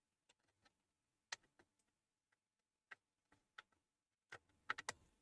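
Near silence broken by faint, scattered clicks and taps of small computer parts being handled, with a quick run of light clicks near the end.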